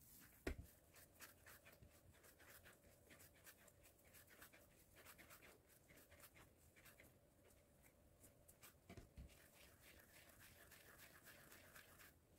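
Near silence with faint soft rubbing and tapping of hands rounding yeast dough into balls on a silicone baking mat, and a soft thump about half a second in and again about nine seconds in.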